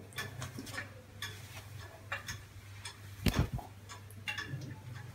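A series of light, irregular clicks and ticks over a low steady hum, with one louder knock a little past the middle.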